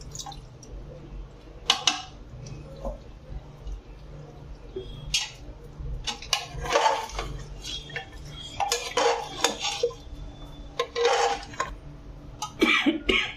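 Metal ladle scraping and clinking against the inside of an aluminium pressure cooker as watery chicken curry is stirred, in irregular bursts about a dozen seconds long in all.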